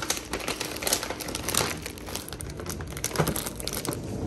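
Plastic food packaging bags crinkling and rustling as they are handled, in a quick irregular series of crackles.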